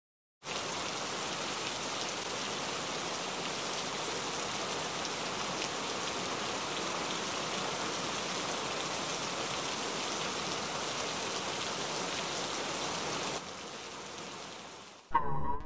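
A steady, even hiss like falling rain, which drops to a lower level about thirteen seconds in and cuts off near the end.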